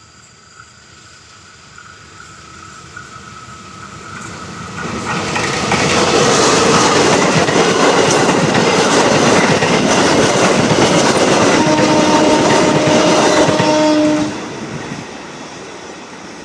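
Diesel-hauled train passing close by: its noise builds over a few seconds to a loud rush with wheels clattering on the rails, and the locomotive's horn sounds for about two and a half seconds near the end of the loud part before the noise drops away suddenly. Insects are faintly heard before it arrives.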